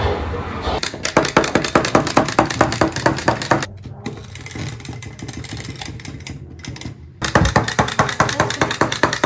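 Electromagnetic interference heard through an induction-coil pickup held near electrical equipment: a harsh, rapidly pulsing buzz and crackle of about ten clicks a second. It breaks off abruptly twice, the middle stretch quieter than the other two.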